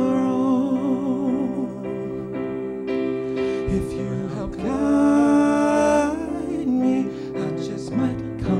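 A man singing long held notes with vibrato over sustained electric keyboard chords, one note near the start and another around the middle.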